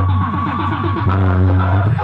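Loud DJ dance track played through a cart-mounted stack of horn loudspeakers. For about a second the beat breaks into sliding pitch sounds over a steady deep bass tone, then the rhythm comes back near the end.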